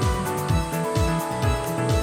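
Background music with a steady beat of low, pitch-dropping kick drums under held instrument tones.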